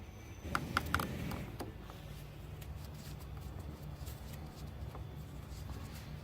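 Small clicks and rustling of hands working a bolt and a controller housing onto an e-bike motor, most of them about half a second to two seconds in, over a steady low hum.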